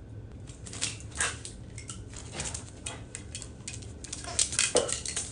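A Shiba Inu's claws clicking and skittering on a tiled floor as it scrambles and runs, in quick irregular taps that grow busiest near the end, with a short squeak among them.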